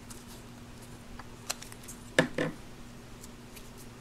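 Soft clicks and taps of hands working Play-Doh into a silicone cupcake wrapper, over a steady low hum. A little past halfway comes a brief, louder pitched sound in two parts.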